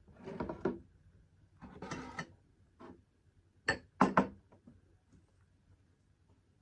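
Eating from a plate of rice and pork curry: two rough scraping stretches of food and utensil against the dish, then three sharp clinks about four seconds in, the loudest sounds.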